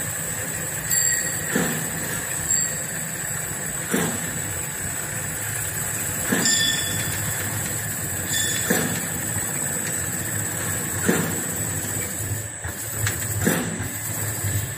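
Automatic bread production line machinery running steadily with a constant hum and whine, punctuated by a regular sharp knock about every two and a half seconds as the line cycles.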